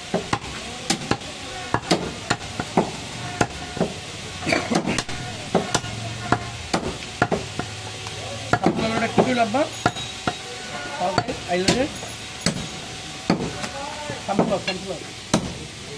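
Heavy curved butcher's knife chopping goat mutton into pieces on a wooden stump chopping block: sharp chops at an uneven pace, about one or two a second.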